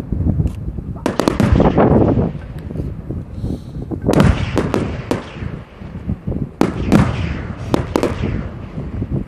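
Aerial fireworks shells bursting one after another: sharp bangs, each with a rumbling tail. They come in clusters about a second in, around four to five seconds in, and again around seven to eight seconds.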